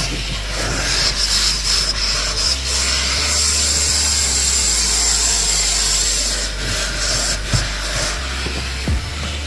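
Vacuum cleaner running with a steady hiss of suction, its hose nozzle rubbing and scraping over the car's floor carpet.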